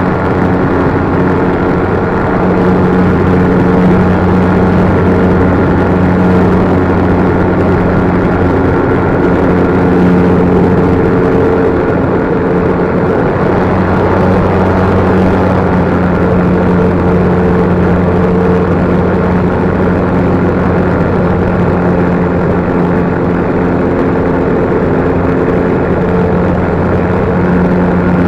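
An RC plane's electric motor and propeller running steadily in flight, a loud even drone whose pitch barely changes, heard from an action camera mounted on the plane.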